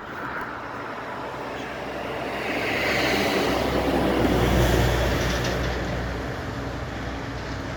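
A vehicle passing on a busy street, a broad rumbling noise that swells to a peak about halfway through and then fades away.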